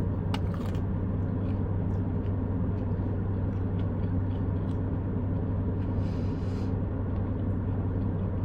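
Steady low hum of a car's idling engine, heard inside the cabin, with faint clicks of chewing on top.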